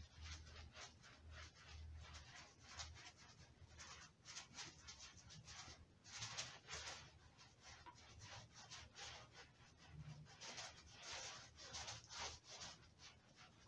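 Paint roller rubbing latex paint onto a fibrous molded hood insulation pad: faint, quick scrubbing strokes, several a second.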